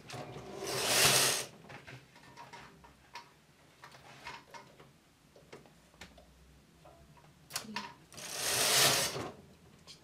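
Flatbed knitting machine carriage pushed across the needle bed twice, knitting two short rows: each pass is a rising then falling whirring rush of about a second and a half, one about a second in and one near the end. Between the passes come light clicks of metal needles.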